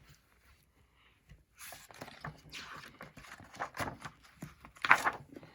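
Paper rustling and light knocks as a picture book is handled and its page turned, starting after a second or so of quiet; the loudest rustle comes near the end.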